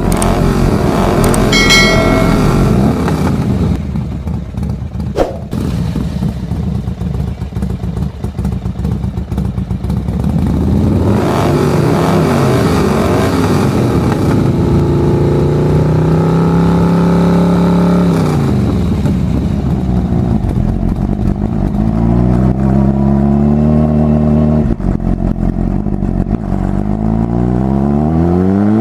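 Motorcycle engine revving sound, its pitch climbing, holding and dropping again several times, with a steep climb near the end.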